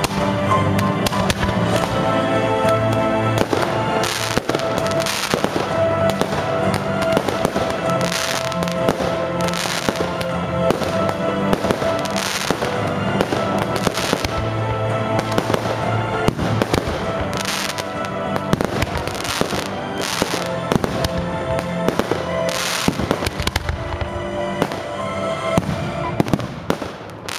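Fireworks display: a rapid string of bangs and pops from launching and bursting fireworks, several a second at times, over music playing throughout. The music drops away at the very end.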